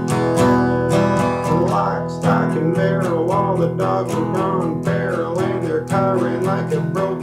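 Acoustic guitar strummed in a steady rhythm during an instrumental break in a song, with a wavering melody line laid over the chords from about two seconds in.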